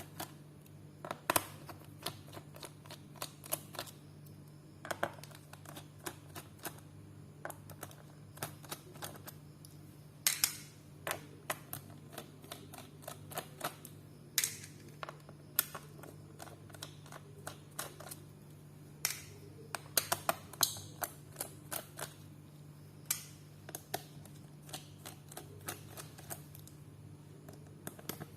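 Irregular small clicks and taps of a screwdriver and screws on the plastic bottom casing of a Dell notebook as the casing screws are taken out, over a steady low hum.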